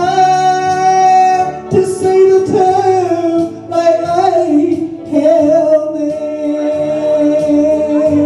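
Gospel singing with instrumental accompaniment: a voice holds long notes over a steady backing.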